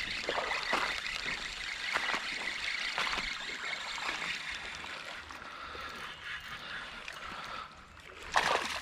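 Creek water running and trickling, with scattered small splashes and one short, louder sound near the end.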